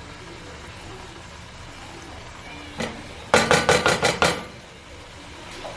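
A utensil knocking rapidly against cookware, about six sharp strikes in roughly a second, starting about three seconds in over a faint steady background, as browned beef is put back into the Dutch oven.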